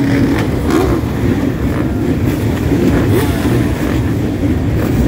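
A large pack of motocross dirt bikes running together on a start line: a dense, steady engine din with individual engines revving up and down through it.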